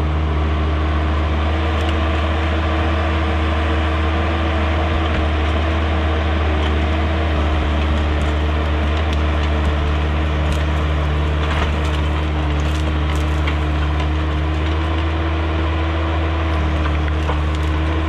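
Diesel engine of heavy machinery running loud and steady at a constant speed, with a few sharp cracks over it.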